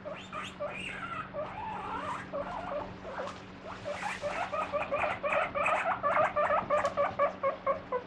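Guinea pig wheeking ("pui pui"): wavering squeals that about halfway through turn into a fast run of short, loud squeaks, about four a second. It is calling at the opening of the fridge, where its vegetables are kept, in anticipation of food.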